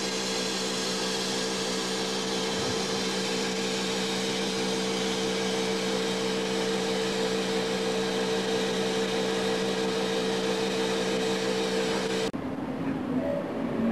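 Steam locomotive standing with steam hissing steadily over a steady hum. The sound cuts off abruptly near the end.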